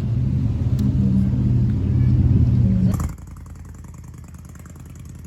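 A vehicle engine running with a steady low hum that grows a little louder, then cuts off abruptly about three seconds in, leaving a quieter background noise.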